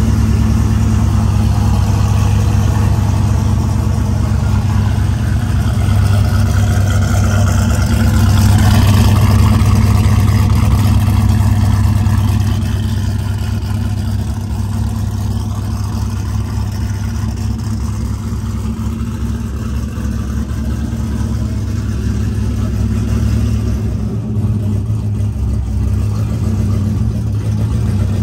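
Turbocharged LS1 V8 in a Holden VL Commodore idling steadily, a little louder for a few seconds about eight seconds in.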